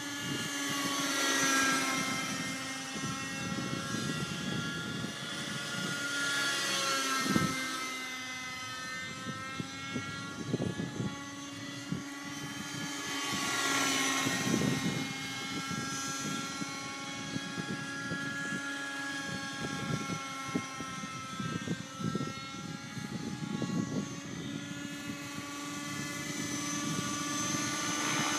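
Thunder Tiger Raptor 50 nitro RC helicopter in flight: its glow engine and rotors whine steadily, sliding up and down in pitch and swelling louder and fading as it flies back and forth.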